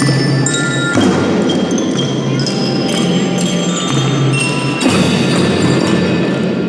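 Children's drum band playing: metal bell-type mallet instruments ring out a melody over held low notes and drums, with sharp percussion hits about a second in and again near five seconds.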